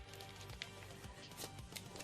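Soft background music with held tones, with a few faint clicks from handling.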